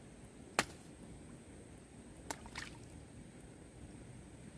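Clumps of wet mud thrown out of a muddy puddle landing with sharp slaps close by: one loud slap under a second in, then two lighter ones a little past two seconds, over a faint steady hiss.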